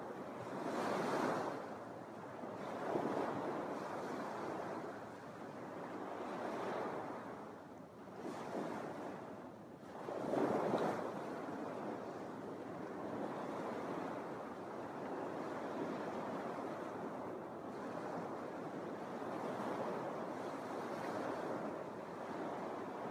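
Small Lake Michigan waves breaking and washing onto a sandy beach, the surf swelling and easing every few seconds. The loudest break comes about ten seconds in, then the wash settles into a steadier hiss.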